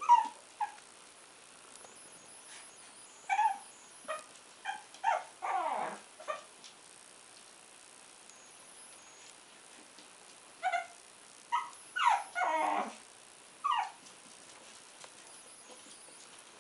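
A Shih Tzu puppy barking in short, high barks that come in bursts, two of them drawn out and sliding down in pitch; there is a pause of a few seconds midway.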